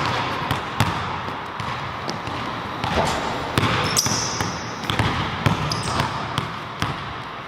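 Basketballs bouncing on a hardwood gym floor, several balls dribbled at once in irregular thuds. A short high squeak comes about four seconds in.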